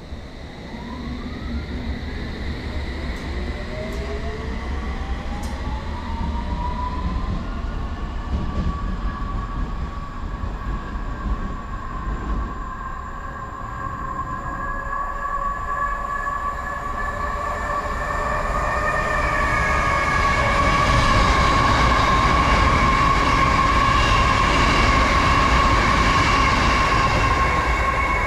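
London Underground S7 Stock District Line train pulling out, its traction motor whine rising in pitch over the first several seconds as it accelerates away. From about two-thirds of the way in, a louder rumble with a steady high hum of several tones builds as another train nears.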